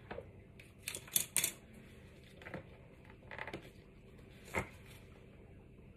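Light clicks and taps of popsicle-style cake-pop moulds and flat wooden sticks being handled on a tabletop, the loudest cluster about a second in, with a few more scattered through.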